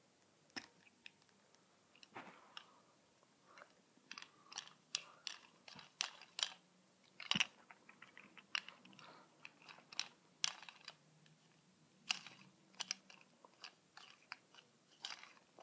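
Plastic Lego bricks being handled and pressed together by hand: a string of small, irregular clicks and snaps.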